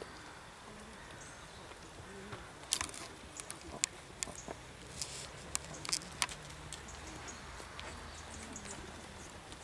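Faint, distant murmuring voices over quiet outdoor background, with a run of sharp clicks and knocks between about three and six seconds in.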